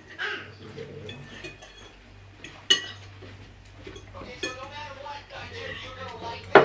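Metal forks scraping and clinking on plates as two people eat noodles, with a sharp ringing clink a little before halfway and another at the very end.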